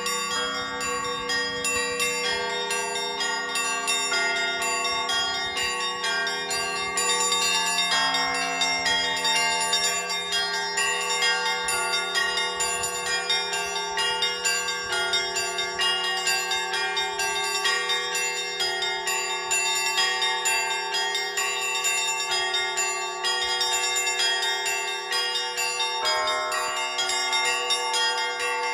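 Russian Orthodox church bells rung by a single bell-ringer: several bells of different sizes struck together in a fast, unbroken peal, the small high bells chiming rapidly over the deeper ones, with a low bell's hum sustained beneath.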